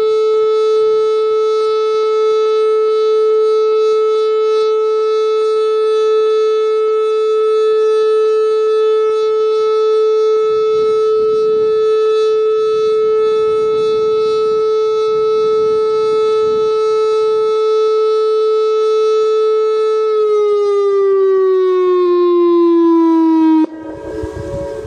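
Whelen 2906 electronic warning siren sounding a steady, loud, heavily clipped tone for a siren test. About 20 seconds in, its pitch slides down, and a few seconds later it cuts off suddenly, leaving fainter steady tones from other sirens.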